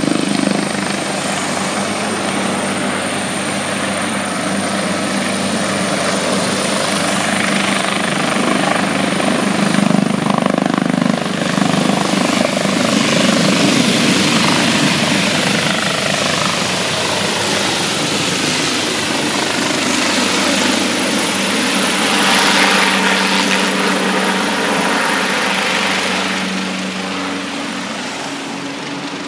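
Maryland State Police medevac helicopter lifting off and flying away overhead. The rotor and engine noise carries a steady high whine, swells as the helicopter passes over, and fades near the end as it climbs away.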